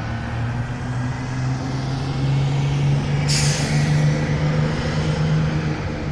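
Bus engine running steadily with a low hum. About three seconds in, a sudden hiss of air starts and fades away.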